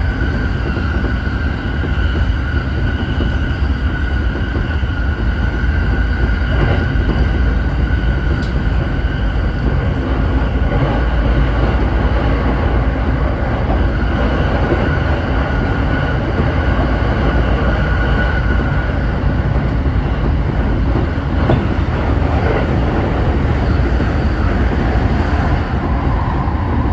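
Running noise of a Tokyo Waterfront Area Rapid Transit 70-000 series electric train cruising at speed, heard from the driver's cab: a steady low rumble of wheels on rail. Over it runs a steady high whine that fades out about two-thirds of the way through.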